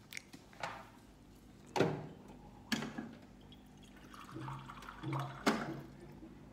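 Wet mouth sounds of eating close to the microphone: several sharp smacks and clicks, the loudest about two, three and five and a half seconds in, with a few short low sounds between them.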